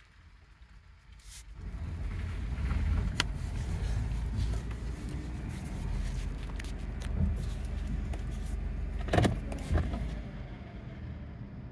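Low-pitched vehicle noise inside the cabin of a 2012 Dodge Grand Caravan, rising sharply about a second and a half in and holding while the van drives slowly, with two sharp knocks near the end.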